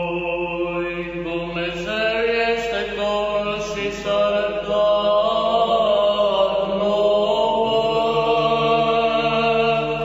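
Orthodox church chant sung in Romanian: voices sing a slow melody of long held notes over a low sustained drone that shifts pitch only a couple of times.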